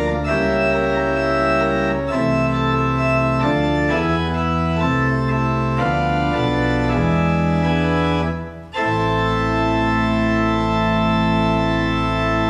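Church organ playing the closing chords of the postlude: a series of changing chords, a brief break about eight and a half seconds in, then one long held final chord released at the very end.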